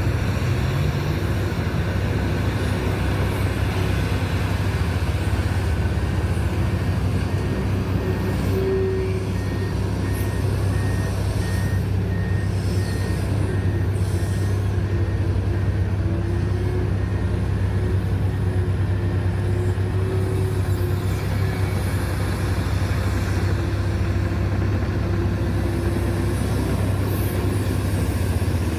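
Komatsu PC1250 mining excavator's large diesel engine running steadily under load as it loads a haul truck. A faint beeping alarm repeats about twice a second for several seconds in the middle.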